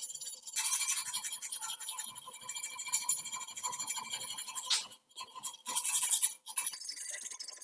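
A hand file rasping back and forth in quick strokes against the steel edge of a cutout in an axe head made from a bicycle sprocket. The strokes break off briefly twice in the second half.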